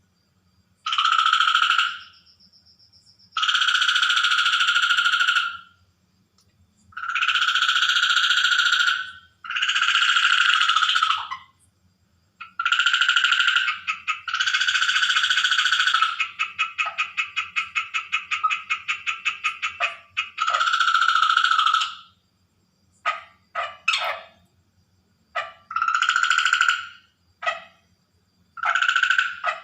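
Water frogs calling: loud drawn-out croaks of one to two seconds each, one after another with short gaps, a stretch of rapid even pulsed croaking in the middle, and several short sharp calls near the end.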